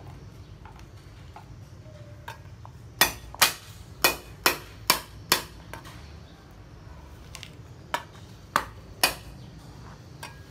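A broad kitchen knife chopping garlic cloves on a plastic cutting board: a run of six sharp knocks about three seconds in, then three more near the end.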